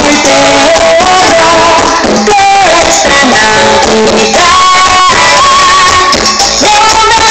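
Loud music played over a large sonidero sound system, with a melodic lead line and dense accompaniment running without a break.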